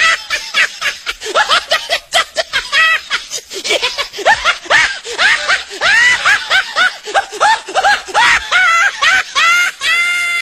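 A person laughing in high-pitched, rapid ha-ha bursts, several a second, in long unbroken fits, ending on a held high note.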